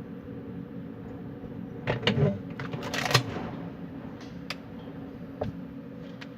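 Wind blowing steadily with a low hum under it, broken by scattered clicks and knocks: a cluster about two to three seconds in, then single ones near the end.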